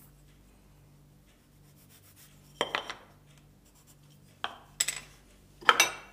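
Small wooden offcuts handled and set down on a workbench and plywood board. After a quiet start come a handful of short knocks, the loudest near the end.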